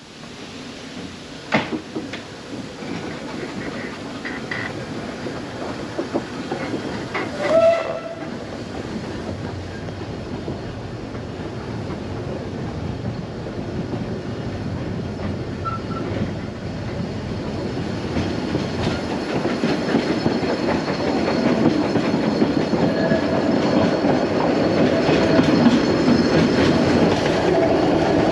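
Isle of Man Steam Railway train pulling away from a station, heard from an open carriage window: the rumble and clatter of the carriages on the track grow steadily louder as it gathers speed. A short, loud pitched tone sounds about seven seconds in.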